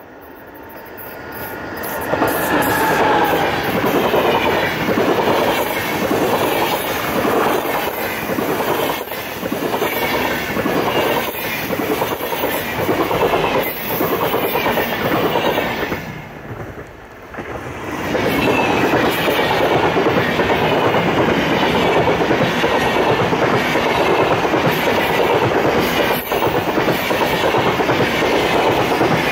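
SBB passenger train of single-deck EW IV coaches hauled by a red Re 460 electric locomotive passing close by: loud running noise with the clickety-clack of wheels over rail joints, building up over the first two seconds as the locomotive arrives. The noise dips briefly about sixteen seconds in, then carries on as the coaches keep rolling past.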